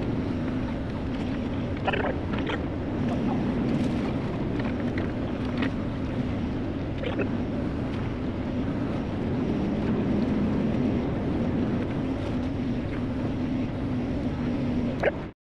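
Volvo excavator's diesel engine running steadily, with a few short knocks and clanks from the machine at work.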